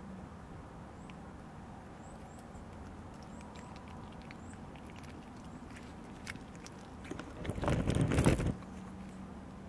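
A cat chewing and biting at scraps of food, with faint irregular clicks. Near the end comes a louder rustling burst lasting about a second.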